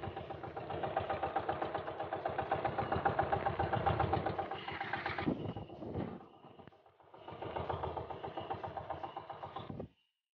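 Outrigger fishing boat's small inboard engine running, with a fast, even train of firing pulses. It drops away for a moment past the middle, comes back, and cuts off suddenly near the end.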